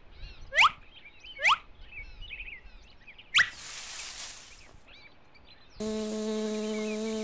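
Cartoon soundtrack: faint birds chirping throughout, two quick whistling glide sound effects in the first two seconds, and a short whoosh about three and a half seconds in. Near six seconds a steady droning hum starts.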